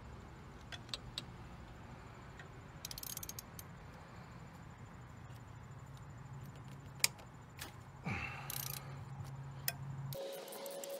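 Small ratchet wrench clicking and clinking on the 10 mm bolts that hold a 2005 Ford Focus ZX5's fuel rail as they are worked loose. There is a quick run of ratchet ticks about three seconds in, with scattered metal clicks before and after, over a steady low hum.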